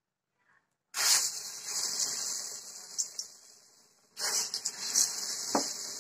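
Hot oil in a kadai sizzling as small lumps of vada batter are dropped in by hand. A sudden sizzle starts about a second in and dies down, then a second burst of sizzling just after four seconds keeps going.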